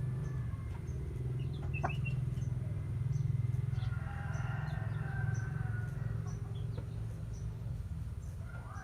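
Bantam roosters crowing, with one drawn-out crow in the middle and another beginning near the end, over a steady low hum and small high chirps.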